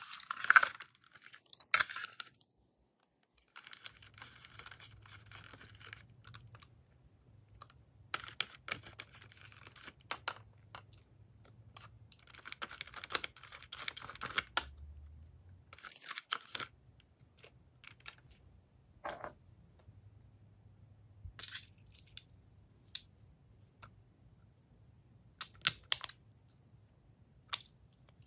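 Handling sounds as items are mixed into slime: several stretches of crinkling and tearing, then scattered sharp clicks in the second half.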